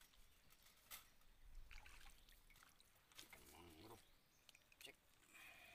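Near silence: faint water dripping and trickling beside the boat, with a few small clicks.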